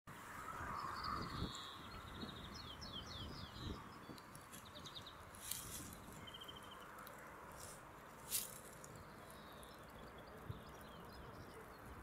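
Small songbirds singing: series of short high chirps and quick trills, most of them in the first four seconds, over a faint steady wash of distant birdsong. A few low thumps and a sharp click about eight seconds in.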